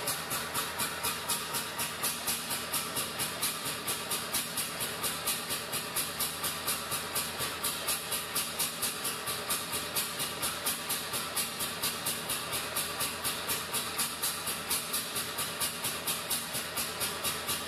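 Single-cylinder two-stroke hot-bulb engine of a vintage Landini tractor running slowly with a slow, even beat of roughly three a second. Over it is the steady hiss of a propane burner heating the engine's hot bulb.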